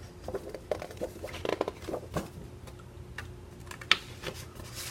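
Sheets of paper and card stock being handled and shuffled: irregular light rustles and taps, with one sharper click about four seconds in.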